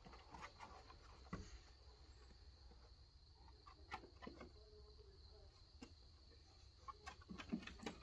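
Near silence with faint, scattered taps and clicks of animal paws and claws on wooden deck boards.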